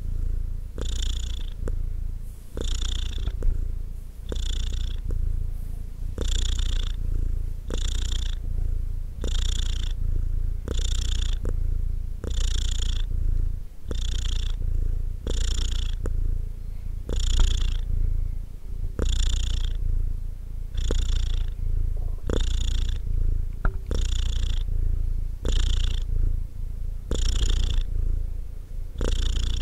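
Domestic cat purring continuously: a low rumble with a breathy swell repeating about once a second.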